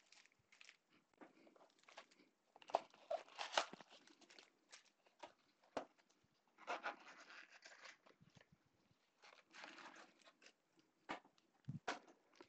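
Faint crinkling, rustling and light taps as a cardboard trading-card blaster box is opened and its foil card packs are handled and stacked. The busiest patches come about three seconds in and again around seven seconds.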